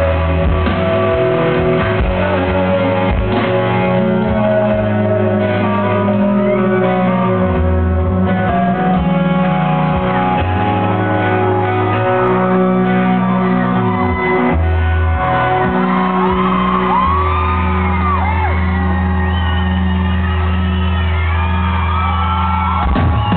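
Live rock band playing loud with bass guitar and electric guitars. Over the last third, long held notes sound while the crowd whoops and shouts over the music.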